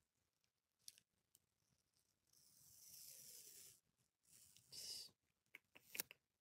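Clear plastic protective film being peeled off the mirror of a makeup compact: a soft peeling hiss lasting about a second and a half, then a shorter rustle of the film in the fingers and a few light crinkles and taps near the end.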